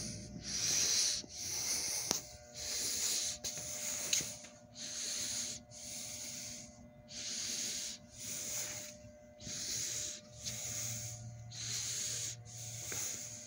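A person breathing hard and fast, out of breath, with about one loud breath a second.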